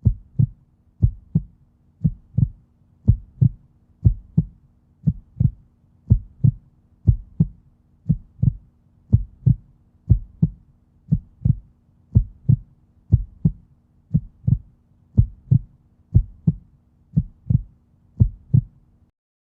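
Heartbeat sound effect: paired low thumps, lub-dub, about once a second and very regular, over a faint steady hum. It stops shortly before the end.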